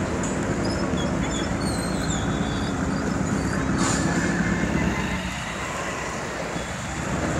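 Street traffic at a busy road junction: motorcycle and vehicle engines running, with a steady low engine hum under general road noise.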